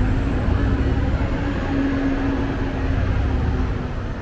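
Street traffic with a nearby motor vehicle running. Its engine gives a steady low hum over the road noise, which stops shortly before the end.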